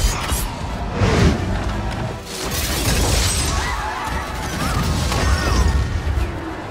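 Film soundtrack of an aerial battle: musical score mixed with crashing impact sound effects, with loud hits near the start and again about a second in.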